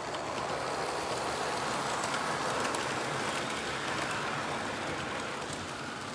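O scale model freight train running past on its track, a steady rolling rumble of metal wheels on the rails that swells as the cars pass close and eases a little near the end.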